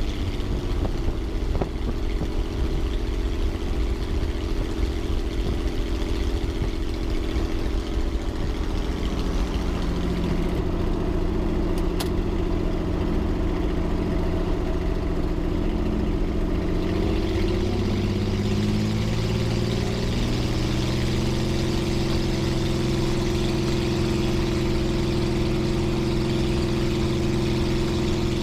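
Titan T-51 Mustang's Suzuki V6 with short stack exhaust pipes running at low power on the ground, heard from inside the cockpit. Its note changes about ten seconds in and again near twenty seconds, then holds steady.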